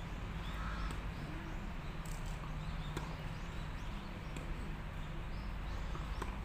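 Tennis balls struck with rackets during a volley drill: a few sharp pops at uneven intervals over a steady low background rumble.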